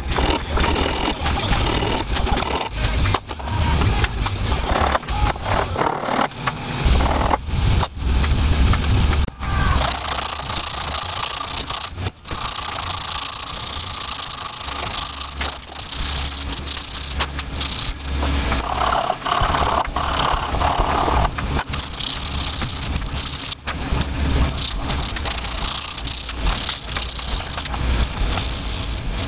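Sandpaper rubbed by hand over a wooden knife handle: continuous rapid rasping strokes, with a low rumble underneath.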